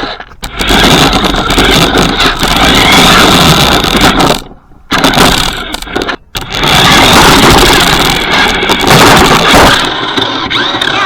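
RC monster truck driving with the camera riding on it: loud motor whine and rattling from the tyres and chassis. It cuts out briefly twice, about four and a half and six seconds in, then eases off near the end.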